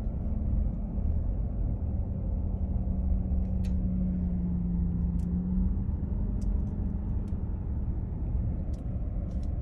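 Inside a car cabin while it drives slowly: a steady low rumble of engine and tyres with a constant hum, and a few faint, scattered clicks.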